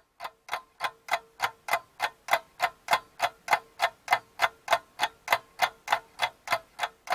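Clock ticking sound effect: fast, even ticks, about three a second, with a faint steady tone underneath.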